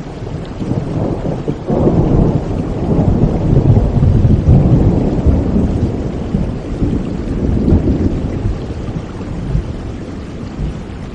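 Rain with a long roll of thunder. The deep rumble swells about two seconds in and dies away over the next several seconds.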